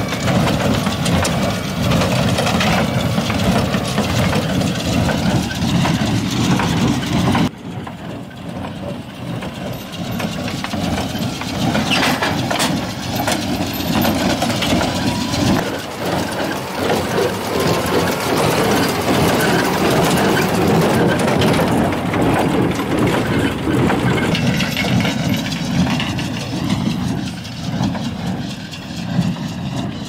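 Tractor engine running steadily with a John Deere small square baler working hay behind it; the level drops suddenly about seven seconds in.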